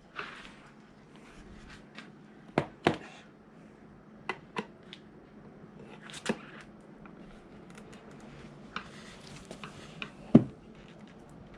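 Hand tools and metal scooter parts being handled: scattered clicks and knocks at irregular intervals, two close together a little under three seconds in and the loudest one about ten seconds in.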